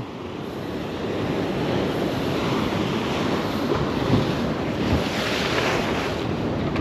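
Ocean waves washing and breaking, with wind rumbling on the microphone; the surf swells louder about five seconds in.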